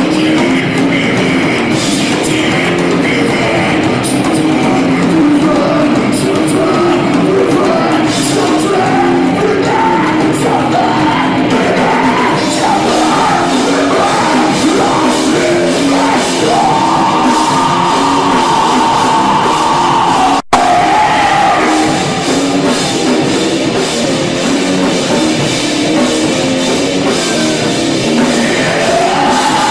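A rock-funk band of drum kit, bass, electric guitar and lead voice playing a song, with long held notes in the second half. The sound cuts out for a split second about twenty seconds in.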